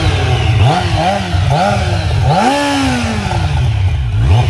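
Kawasaki Z900's inline-four engine on its stock exhaust, blipped lightly from idle: three quick revs that rise and fall, then a longer, higher rev about two seconds in, and another short blip near the end.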